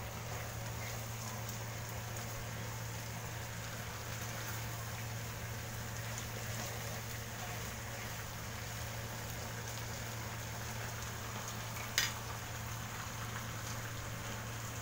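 Minced meat and eggplant simmering in sauce in a frying pan: a steady bubbling and sizzling hiss, stirred with a spatula, over a steady low hum. A single sharp click about twelve seconds in.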